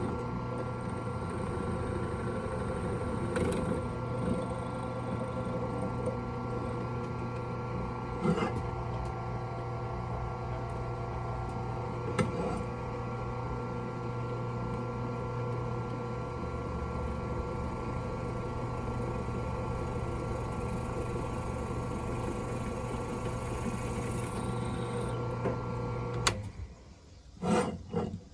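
An electric motor running at a steady speed with an even hum, switched off about 26 seconds in, followed by a few loud knocks.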